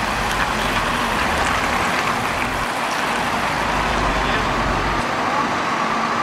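Steady city road traffic noise, with a bus passing close by.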